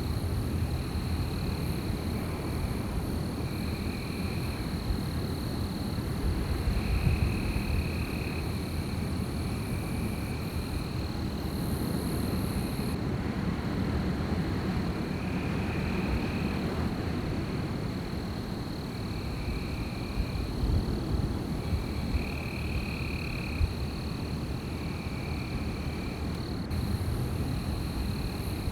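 Wind blowing steadily with a low rumble. Over it runs a thin, steady high-pitched tone, and short calls repeat every second or two.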